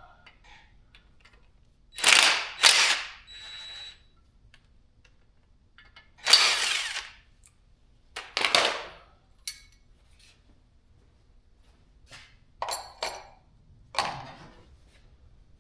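A handheld power tool on engine fasteners, run in about eight short bursts of under a second each, in small groups with pauses between.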